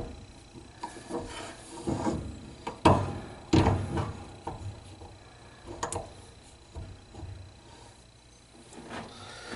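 Irregular metal knocks and clatter from a crescent wrench being fitted and worked on a dryer motor's shaft, trying to loosen the broken drive pulley piece; the sharpest hits come about three to four seconds in and again near six seconds.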